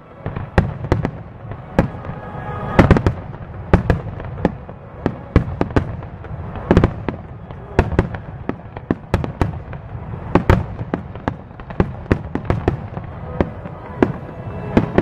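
Fireworks display: aerial shells bursting one after another in sharp bangs at irregular intervals, some close together, over a continuous low rumble.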